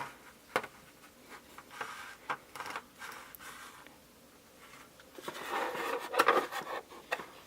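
Hands handling toy packaging and plastic parts: rubbing, scraping and light clicks, busier and louder from about five seconds in.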